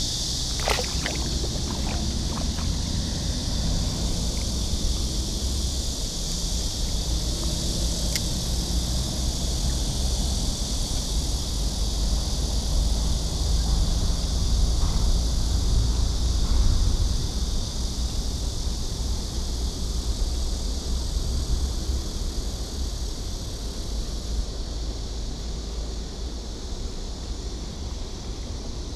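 Steady low rumble of road traffic and wind under a constant high-pitched hiss, with a few light clicks in the first few seconds.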